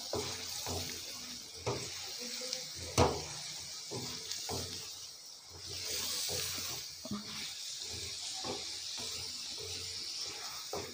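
Chicken pieces sizzling in oil in a steel karahi while a wooden spatula stirs them, with repeated scrapes and knocks against the pan and a sharp knock about three seconds in.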